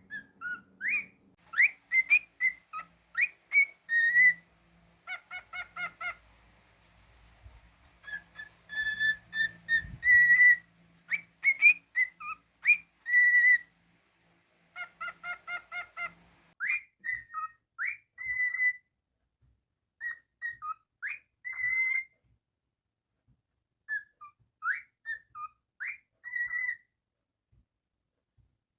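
Pet cockatiel whistling a tune: clear notes with quick upward and downward swoops, some fast runs of repeated notes, sung in short phrases with brief pauses between them.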